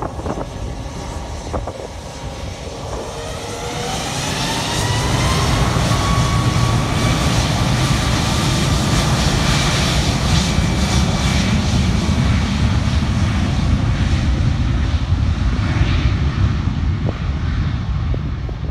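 Jet engines of a Ryanair Boeing 737 spooling up for takeoff. A rising whine over the first few seconds gives way to loud, steady engine noise as the jet accelerates down the runway, easing slightly near the end.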